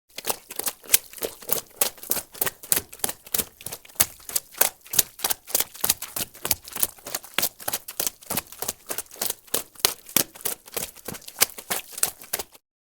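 Footsteps squelching through soft, muddy ground, a quick run of wet sucking steps, several a second, that stops just before the end.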